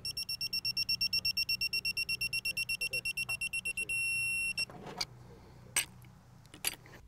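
Digital torque wrench beeping rapidly, about nine high beeps a second, then one continuous beep for under a second: the signal that the flare nut has reached the set torque of 28 foot-pounds. A few short clicks follow near the end.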